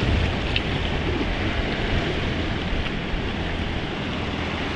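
Sea waves washing and fizzing steadily over shoreline rocks, with wind rumbling on the microphone.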